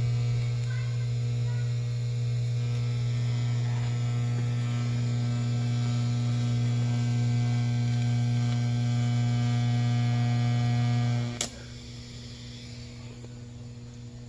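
Welder running, a loud, steady electrical hum with a faint hiss over it, cutting off sharply about eleven seconds in as the weld stops.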